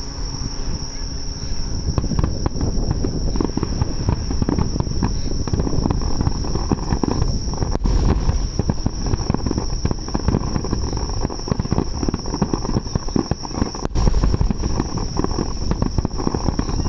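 Fireworks bursting and crackling in a dense, irregular stream, louder about eight and fourteen seconds in, over a steady high trilling of insects.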